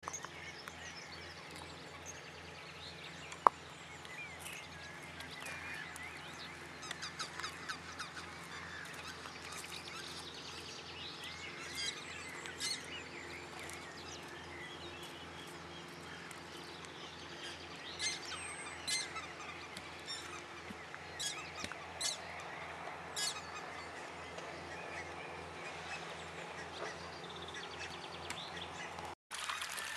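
Many wild birds calling, short repeated calls throughout over a steady low hum, with one sharp loud click about three and a half seconds in. The sound drops out briefly near the end.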